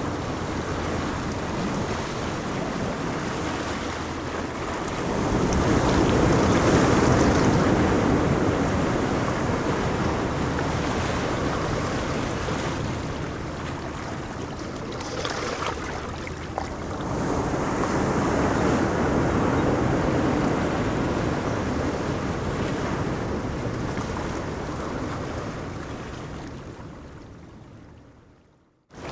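Ocean surf washing onto a beach, with a wave breaking and swelling louder about five seconds in and another around seventeen seconds. The sound fades away just before the end.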